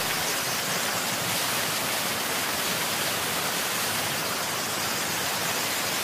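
Duduma Waterfall's falling water: a steady, even rushing hiss with no rhythm or breaks.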